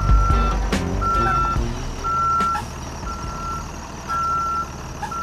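Reverse warning beeper on a converted school bus, a steady high beep about once a second, over the low rumble of the bus's engine as it backs up.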